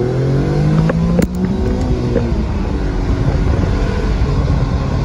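Infiniti G35's 3.5-litre V6 on a Magnaflow exhaust, accelerating hard: the revs climb, a gearshift about a second in drops the pitch, and then it pulls and climbs again. Wind noise comes through the open windows.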